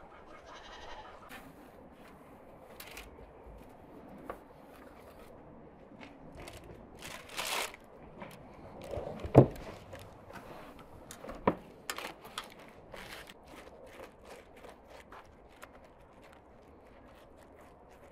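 Scattered taps and clatters of the bread being handled on its board and metal tray, with one sharp knock about nine seconds in, the loudest sound, and another about two seconds later. Livestock bleat in the background.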